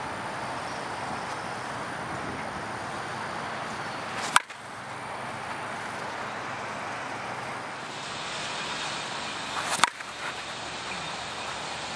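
Two sharp cracks about five seconds apart, the second louder: a brand-new 29-ounce Dudley Lightning Balance carbon-composite slow-pitch bat hitting a softball, over a steady rush of background noise. The bat is not yet broken in, hard and not flexing, which the hitters hear as a different sound.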